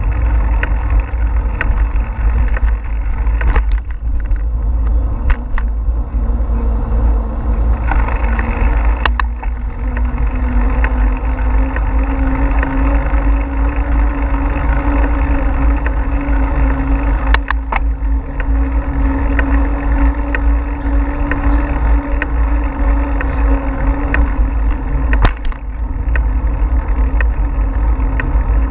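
Wind buffeting a GoPro microphone while riding a bicycle, with the hiss of tyres on a paved trail and a few sharp knocks from bumps in the path. About eight seconds in a steady hum joins, climbing slightly in pitch, and fades near the end.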